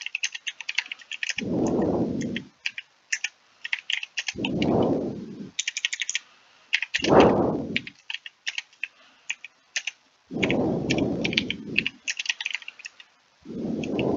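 Typing on a computer keyboard: quick runs of key clicks with short pauses. A low whooshing swell, about a second long, comes roughly every three seconds.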